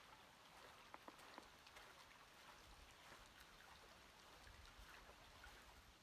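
Near silence: the faint trickle of a shallow desert creek, with a few soft scattered ticks.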